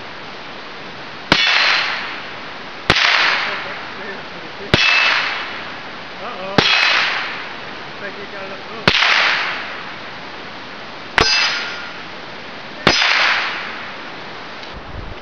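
Seven .22 LR rifle shots fired at a steady pace, one every two seconds or so, each sharp crack followed by a short echo trailing off.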